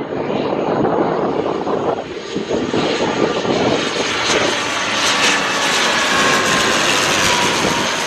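ATR 72-500's twin turboprops passing low overhead on landing approach: the engine and propeller noise grows brighter as it closes in, and a whine slides down in pitch as the aircraft goes past.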